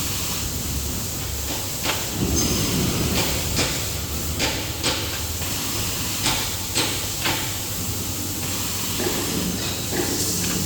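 Maxi roll paper towel band saw cutting machine running with a steady hiss. A run of sharp clacks comes every half second or so through the middle of the stretch.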